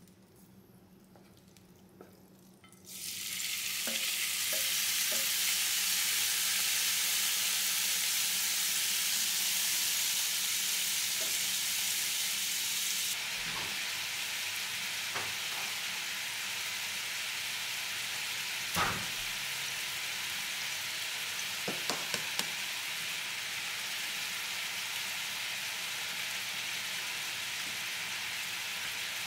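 Thinly sliced beef sizzling in a hot oiled nonstick frying pan: a near-quiet pan with a few small taps, then a sudden loud, steady sizzle about three seconds in that eases a little about halfway through, with a few light clicks scattered through it.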